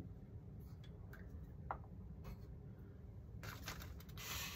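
Faint workbench handling sounds as balsa and plywood wing parts are moved: a few light ticks, then two short rustling scrapes near the end.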